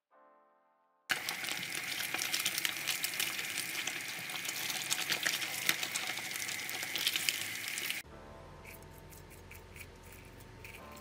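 Whole fish deep frying in a wok of hot oil, a loud, dense crackling sizzle for about seven seconds, after a short fading tone at the start. It then cuts to something much quieter: a knife scraping into the soft, oily skin of a fried fish, with a few light clicks.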